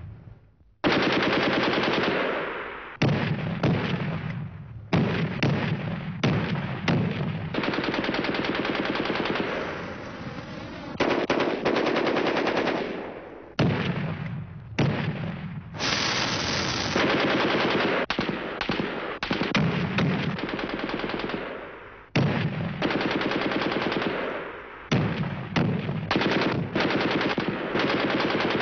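Machine-gun fire: a run of long bursts of rapid automatic fire with short breaks between them, many bursts fading as they trail off.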